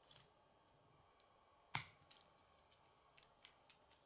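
Plastic K'nex rods and connectors clicking together as a model is assembled by hand: one sharp snap a little under two seconds in, then several lighter clicks near the end.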